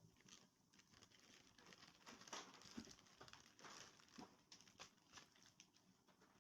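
Faint rustling and crinkling of packaging with small clicks, busiest about two to four seconds in: scanner accessories and cables being handled out of their box.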